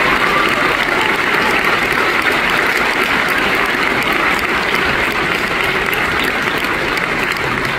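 Theatre audience applauding, a dense, steady clapping that eases off slightly toward the end.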